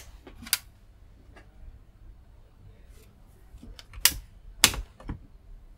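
Sharp clicks of mains switches being flicked: a pair about half a second apart at the start, then a louder pair about four seconds in as the rocker switch on the dim-bulb limiter box is worked, with faint handling noises between.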